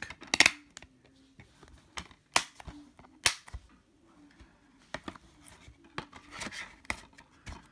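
Plastic DVD case being handled: several sharp plastic clicks and snaps in the first few seconds as the disc and case are worked and the case is shut, then a softer rustle of handling with the cardboard slipcover.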